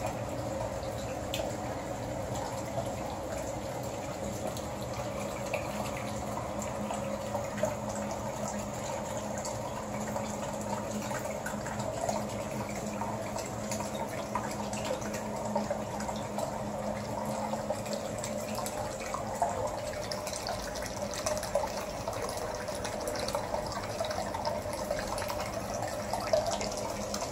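Hot spring water pouring steadily from a metal spout into a full wooden bathtub, splashing on the surface, with a few louder splashes now and then.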